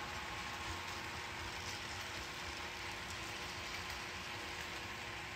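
HO scale model freight train rolling by: a steady hiss of small wheels on the track, with a faint steady engine drone from a DCC sound-equipped diesel locomotive's speaker.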